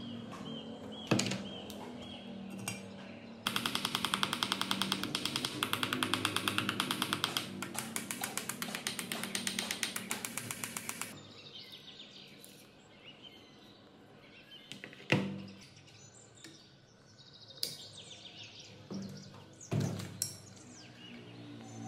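Hand tools at work on a rusty electric water pump motor being taken apart. There is a fast, even run of clicks for several seconds in the first half, and a few sharp metal knocks.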